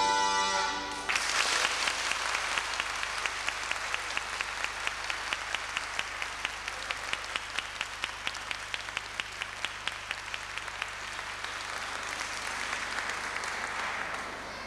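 A piece of droning folk pipe music ends on a held chord about a second in, and the audience applauds; the clapping falls into a steady rhythmic clap in unison for several seconds, then loosens and fades out near the end.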